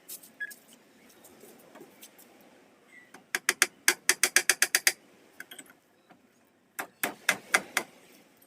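Hand tool working a hardwood board: a quick run of sharp knocks or clicks, about six a second, lasting nearly two seconds, and a shorter run near the end, while a hole is made for a screw.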